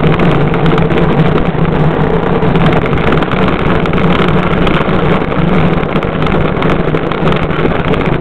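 Gravity luge cart rolling fast down a paved track: the wheels on the pavement give a loud, steady rumble with light rattling and no engine.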